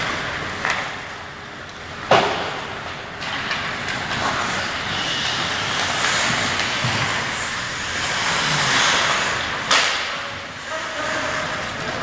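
Sounds of ice hockey play: a steady scraping hiss of skates on the ice under the rink's hum, with two sharp knocks from sticks, puck or boards, the louder about two seconds in and another near ten seconds.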